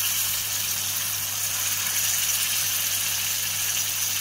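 Ground tamarind paste frying in hot oil in a kadai with green chillies and curry leaves: a steady sizzle of bubbling oil, with a steady low hum underneath.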